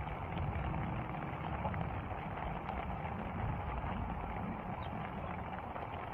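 Steady rain pattering, with a low rumble under it.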